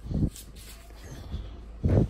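Two dull thumps, one just after the start and one near the end, from a torque wrench being handled and fitted onto a handlebar clamp bolt.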